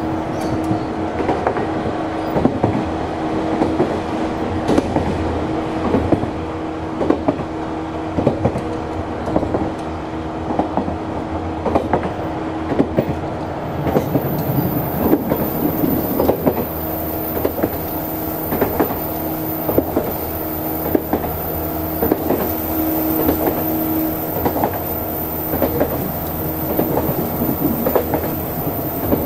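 JNR 185 series electric train running at speed, heard from the gangway between two cars: the MT54 DC traction motors hum with a steady tone under a continuous clatter of irregular clicks and knocks from the wheels on the rails and the gangway plates rubbing together. A thin high whine joins in about halfway through.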